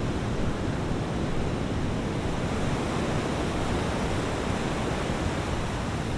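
Steady rushing of wind and sea, an even roar with no clear pitch.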